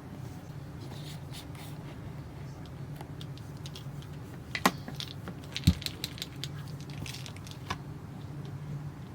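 Light handling sounds from unboxing: scattered small clicks and rustles, with two sharper clicks near the middle, over a steady low hum.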